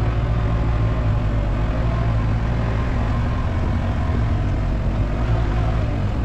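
Vehicle engine running steadily while driving along a dirt road, a constant low drone.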